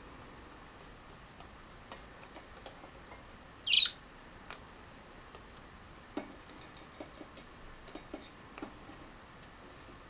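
A budgerigar gives one short, loud chirp a little under four seconds in, followed by scattered light taps and clicks as a budgie scrabbles about on the shelf.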